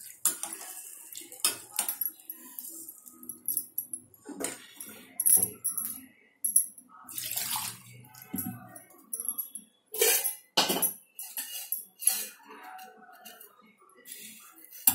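A hand squishing and swishing thin tamarind water mixed with chilli powder and salt in a steel pot, with irregular splashes and clinks against the metal.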